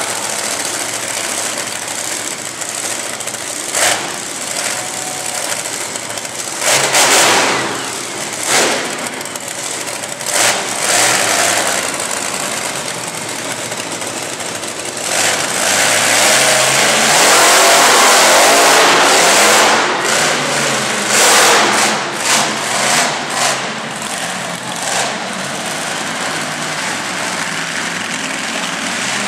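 Monster truck engine revving in repeated surges, with one long loud run of throttle about halfway through.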